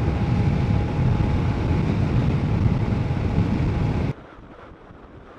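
Wind rushing over the microphone with the BMW K1200RS motorcycle running beneath it, while the bike is being ridden at speed. About four seconds in it cuts off abruptly, leaving a much quieter hiss.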